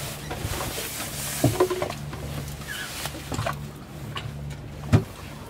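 Rustling and knocking of a bagged light sail being hauled out of an inflatable dinghy onto a yacht's teak stern platform, with the loudest thump about five seconds in. A low steady hum runs underneath.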